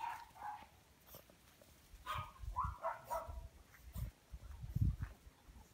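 French bulldog puppies yipping and barking as they wrestle in play: a short call right at the start, then a cluster of yips about two to three seconds in. A few low thuds follow near the end, the last one the loudest.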